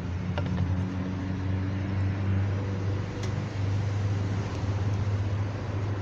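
Chevrolet Niva engine running steadily, a low even hum with a couple of faint clicks.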